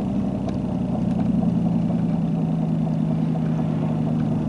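Engine and road noise inside a moving car's cabin: a steady low hum that drops a little in pitch about a second in.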